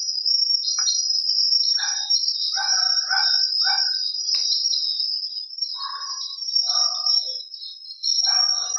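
Steady high-pitched trilling of night insects, like crickets, with short animal calls breaking in irregularly, several in quick succession. The explorers took the noise for a small animal.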